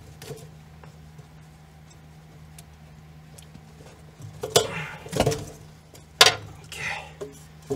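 Plastic and metal clicks and knocks as a Mustang GT fuel pump module is worked up out of the fuel tank, with light ticks at first and several sharp clacks in the second half, over a steady low hum.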